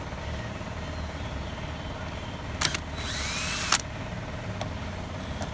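Cordless drill-driver backing out a pump mounting screw: a click, then a short run of under a second of motor whine that rises and falls in pitch, about three seconds in. A steady low hum runs underneath throughout.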